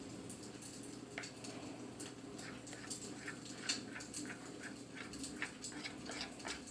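Liquid glue with food colouring being stirred in a container with a utensil: faint, irregular small clicks of the utensil against the container and sticky squelches, a few a second.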